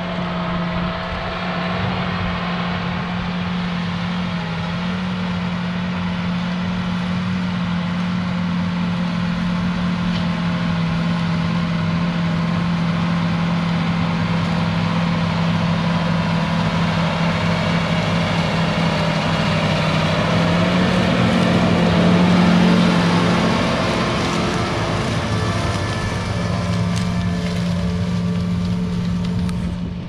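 John Deere 8245R tractor's six-cylinder diesel engine running steadily under load while pulling a Case IH chisel plow. It grows louder as the tractor approaches, is loudest about two-thirds of the way through as it passes close by, then eases off a little.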